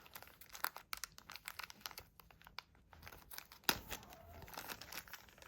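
Plastic wrapping being crinkled and torn open by hand: a run of irregular sharp crackles, with one louder crackle about two-thirds of the way through.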